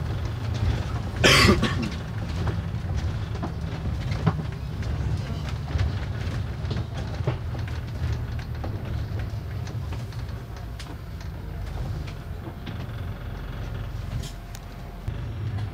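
Moving double-decker bus heard from its upper deck: a steady low engine drone with scattered clicks and rattles from the bodywork, and a loud, brief burst of noise about a second in.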